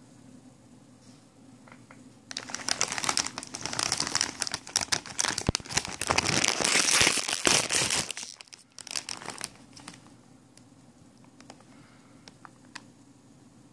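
Plastic potato chip bag crinkling as it is handled and opened by hand, starting about two seconds in and dying away about nine seconds in.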